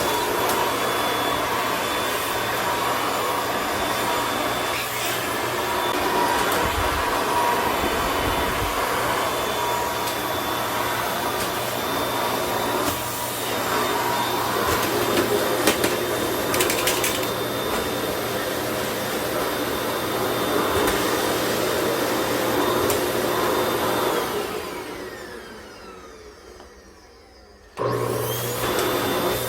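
Vacuum cleaner running with a steady whirring motor hum. About 24 seconds in it is switched off and its motor winds down with a falling whine. Near the end it is switched back on abruptly and spins up again.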